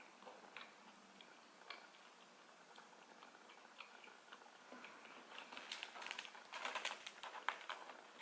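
Close-miked eating sounds: small clicks of chewing and of fingers picking at a cheesy deep-dish pizza in its cardboard box. The clicks come sparsely at first, then crowd together into a denser run from about five and a half to nearly eight seconds in.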